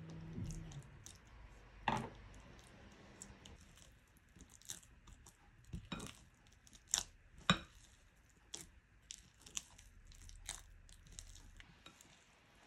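Spatula folding butter into sticky bread dough in a glass bowl: irregular wet squishing, with sharp clicks and knocks as the spatula hits the glass, the loudest about 2 s and 7.5 s in. A low hum stops shortly after the start.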